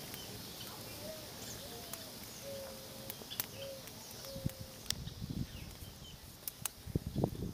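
Campfire crackling, with scattered sharp pops and snaps. A bird calls softly about five times in the first half, short low notes. Irregular low thuds come in from the middle and grow more frequent near the end.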